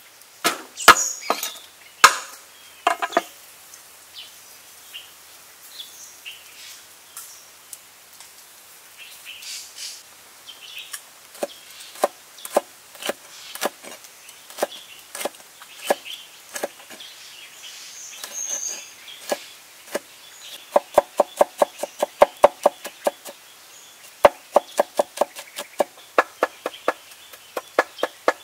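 A hammered-steel cleaver knife chopping garlic and red chili on a wooden cutting board. Scattered single cuts give way, in the second half, to two runs of fast chopping at about five or six strokes a second.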